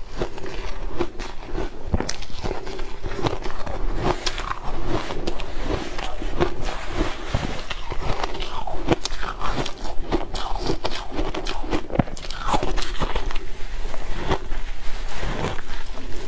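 Shaved ice being bitten and crunched, close to a clip-on microphone: a dense, continuous run of crisp crunches as mouthfuls of packed ice are chewed.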